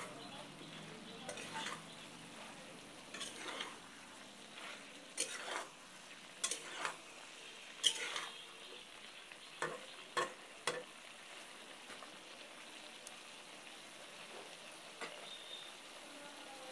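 A spatula stirring fish and vegetables frying in a metal pot: irregular scrapes and clinks against the pot over a steady sizzle. The stirring thins out over the last few seconds, leaving mostly the sizzle.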